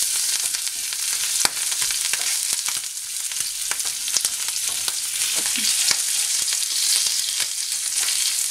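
Garden slugs frying in olive oil in a very hot pan: a steady sizzle with frequent crackles and pops.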